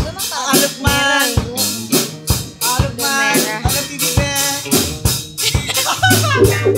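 Live rock band playing: drum kit with steady cymbal strokes, electric guitars and bass guitar, with a singing voice. A held bass note comes in near the end.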